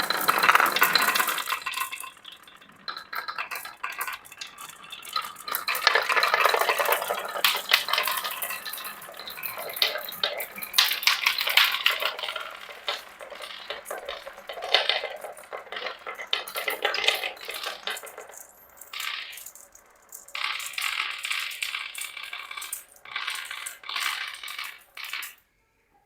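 Many marbles rolling and clattering down a marble run, a dense rattle of clicks that comes in several waves and cuts off suddenly near the end.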